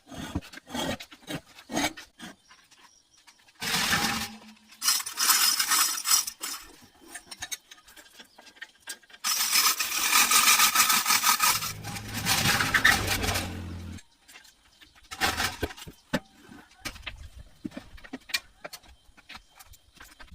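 Workshop work on metal parts: scattered clicks and knocks, and several bursts of harsh scraping or abrasive noise, the longest lasting about five seconds with a low motor hum in its second half.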